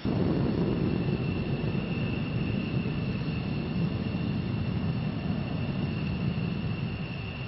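Jet aircraft engine noise: a steady, loud rumble that cuts in abruptly, with a steady high whine above it.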